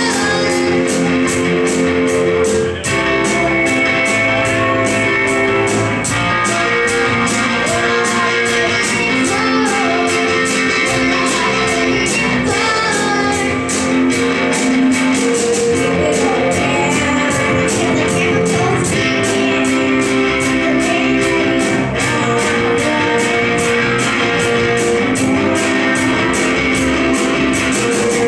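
A live rock band playing a song: electric guitar, bass guitar, drums with a steady cymbal beat, and keyboard, with a girl singing lead.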